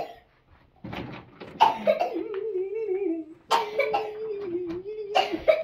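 Baby laughing and vocalizing: a short breathy laugh, then two long, wavering vocal sounds of about two seconds each.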